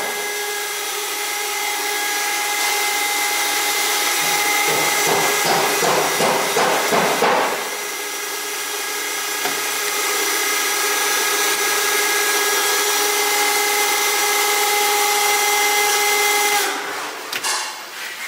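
Acore VTP vacuum transformer oil purifier running, its vacuum pump and oil pump giving a steady whine with several tones over a hiss, with irregular crackling through the first seven seconds or so. The running sound cuts out about seventeen seconds in, as the pumps are switched off.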